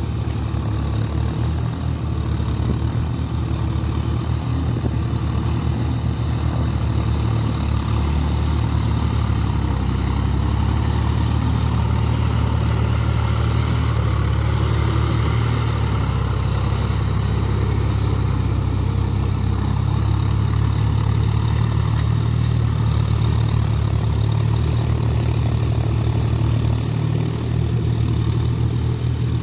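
John Deere tractor's diesel engine running steadily as it works a flooded paddy field on iron cage wheels, a little louder in the middle as it passes close by.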